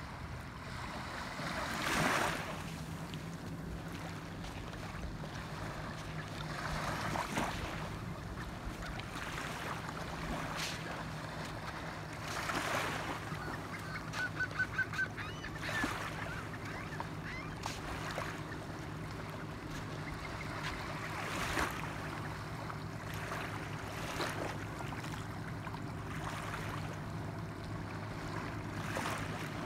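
Small waves lapping at the shoreline, washing in over the sand every few seconds, with a steady low engine hum underneath from about two seconds in. About halfway through, a bird gives five short, quick calls.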